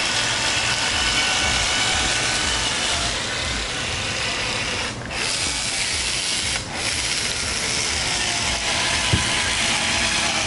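Electric caulking gun running steadily as it drives a bead of windshield urethane out of a sausage pack. It stops briefly twice, about halfway through and again a little later.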